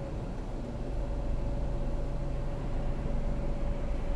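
Truck's diesel engine idling, a steady low rumble with a thin steady hum over it.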